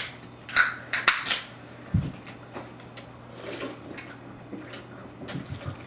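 Seltzer drink containers being handled and opened: several sharp clicks in the first second and a half, a dull knock about two seconds in, then scattered faint clinks.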